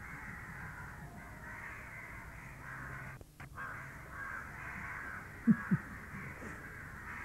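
A flock of crows cawing together in a dense, continuous chorus as they settle to roost at dusk. Two brief louder sounds stand out about five and a half seconds in.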